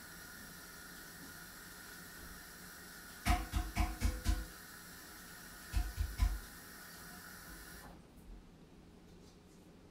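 Steady hiss with faint high tones that cuts off suddenly about eight seconds in. Over it, two runs of dull knocks: about five quick ones a little past three seconds and three more around six seconds.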